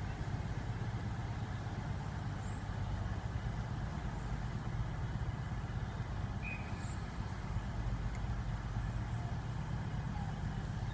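Class 43 HST diesel power car engine droning low and steady as the train draws away into the distance.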